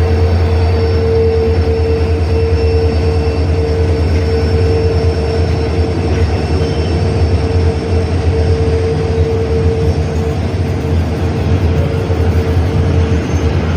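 Two WDG-4 diesel-electric locomotives, each with an EMD 16-cylinder two-stroke engine, running together with a steady loud hum: a deep low drone under a steady higher tone.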